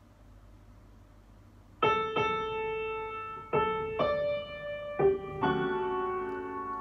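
Quiet room tone for about two seconds, then slow solo piano music begins: single notes and chords struck about once a second, each left ringing. The music answers a voice request to Google and is not the song that was asked for.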